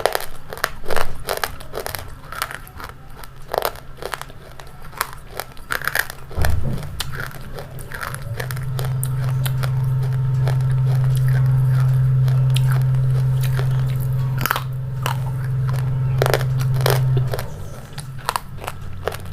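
Close-up crunchy biting and chewing: a long run of crisp crunches. A steady low hum comes in about eight seconds in and stops a little before the end, the loudest sound while it lasts.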